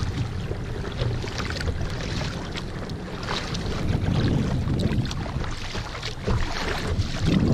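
Choppy lake water splashing and slapping against a kayak's bow, with wind rumbling on the microphone.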